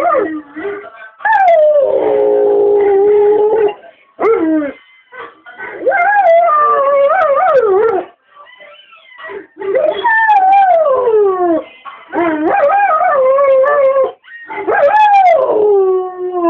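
Dogs howling: a bull mastiff's howling played back from a video, and a pet dog howling along in reply. About six long howls, each two to three seconds, slide and waver downward in pitch, with short breaks between them.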